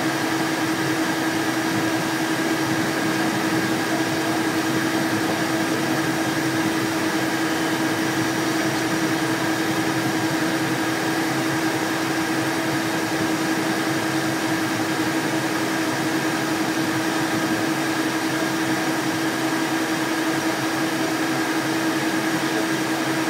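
Steady cockpit noise of a Cessna Citation Excel taxiing: the hum of its twin turbofan engines and the cabin air system. A constant low-pitched tone runs over the noise, with a fainter higher whine.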